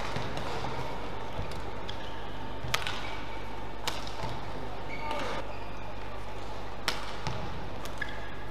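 Badminton racket strikes on a shuttlecock during a rally: about four sharp, crisp hits a second or more apart. There are a few short shoe squeaks on the court mat, over a steady low hum.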